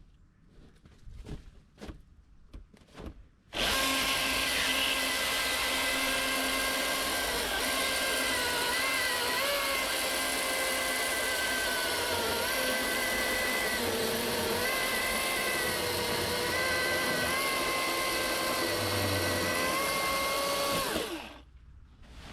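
Milwaukee M18 Fuel battery chainsaw running at full speed and cutting through a dry beech trunk: a steady high whine whose pitch dips briefly several times as the chain takes load. It starts a few seconds in, after some light knocks, and stops shortly before the end.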